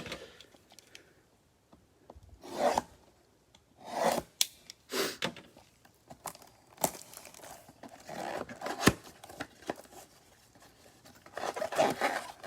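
Trading card packaging being torn open and handled: short scratchy rips and rustles in several separate bursts, with a sharp click about nine seconds in.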